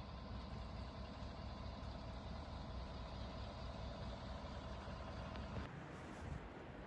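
A vehicle engine idling, a steady low hum with a faint constant tone in it. It cuts off abruptly about five and a half seconds in, leaving a fainter hiss.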